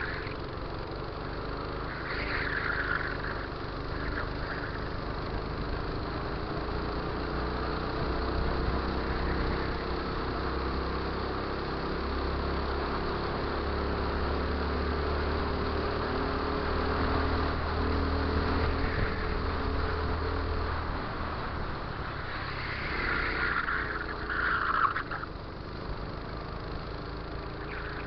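Racing go-kart's small engine running hard, heard from on board the kart, with the engine note climbing gently as it pulls through the middle of the stretch. A continuous rush of noise lies under it, with short brighter noises near the start and again a little before the end.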